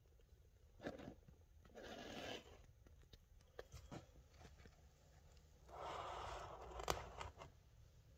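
Faint handling noise: a brief rustling scrape about two seconds in and a longer one around six seconds, with scattered small clicks, the sharpest near seven seconds.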